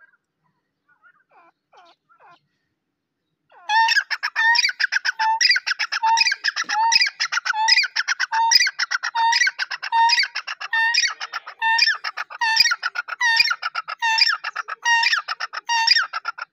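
Francolin (teetar) calling: a few faint short notes, then from about four seconds in a loud, rapid, unbroken series of harsh repeated call notes at roughly two phrases a second.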